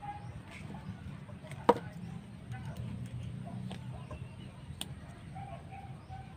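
Two sharp plastic clicks, a loud one about a second and a half in and a softer one near five seconds, as a plastic flip-up gun sight is worked by hand. Chickens cluck faintly in the background.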